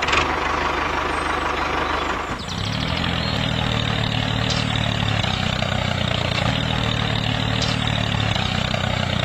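Tractor engine running: a rougher, noisier stretch for about the first two seconds, then a steady low idle. This is the engine sound given to a toy tractor.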